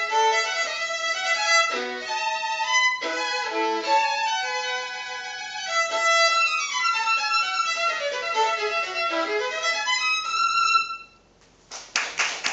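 Solo violin playing a fast classical passage of quick runs, ending on a held note about eleven seconds in. After a short pause, a burst of noise comes near the end.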